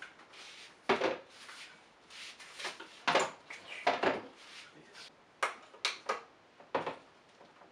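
Handling noise from a small 3D printer's housing. It knocks and scrapes as it is turned around on a cabinet top, then clicks as a spool holder is pressed onto its back panel. The knocks and clicks come irregularly, about a second apart, with the loudest knock at the very end.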